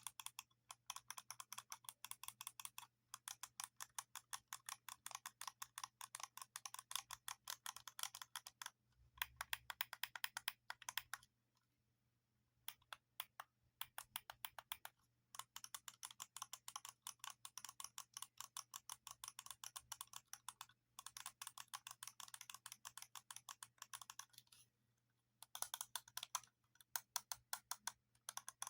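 Buttons or keys pressed in quick succession: rapid clicking much like fast typing on a keyboard, in runs of a few seconds separated by brief pauses, with a louder, denser flurry about a third of the way through.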